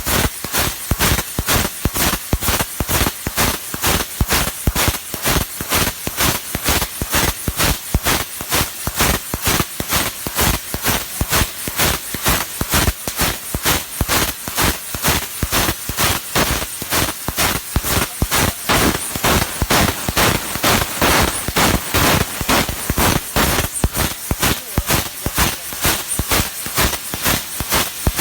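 20 kW fiber laser cutting 25 mm carbon steel plate: a loud, harsh hiss of the cutting jet, broken into a rapid, regular crackle of several pulses a second.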